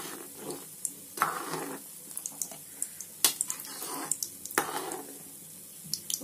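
Metal ladle stirring thick kadhi in a metal pot, with several scrapes and knocks against the pot's sides and bottom. A steady sizzle of pakoras frying in oil runs underneath.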